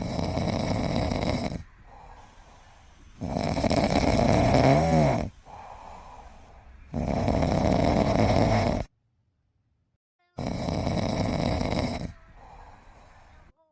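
A sleeping pet snoring: four long snores about three and a half seconds apart, each followed by a quieter breath out.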